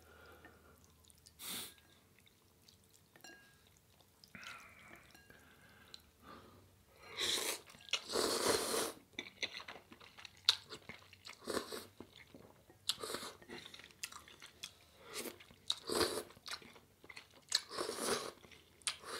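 Close-up eating sounds of a person slurping and chewing Jin ramen noodles, in repeated short bursts with quiet gaps between. The longest slurp lasts nearly two seconds, starting about seven seconds in.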